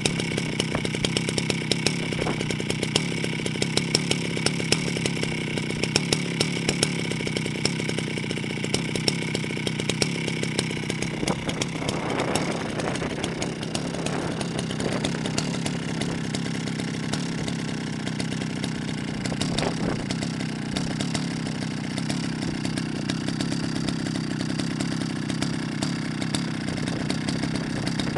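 Jonsered 70E two-stroke chainsaw engine running steadily; about halfway through its pitch shifts and wavers for a few seconds before it settles into steady running again.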